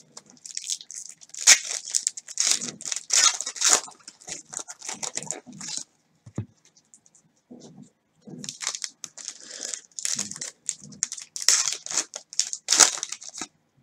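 Trading card pack wrappers tearing and crinkling as hands rip the packs open and pull the cards out, in two bouts with a short pause between.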